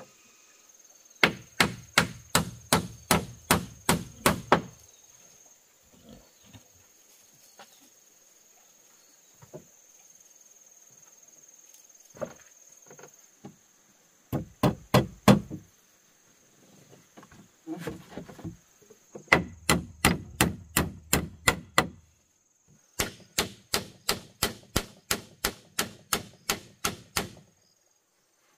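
Hammer blows on wood, in four quick runs of about three strikes a second with short pauses between, as when nails are driven.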